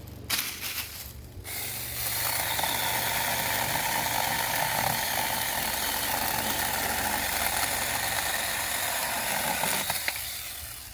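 Saker 6-inch battery-powered mini chainsaw cutting steadily through a hard, seasoned beech log. Its motor and chain run under load from about two seconds in and wind down near the end, after a few short blips of the saw at the start.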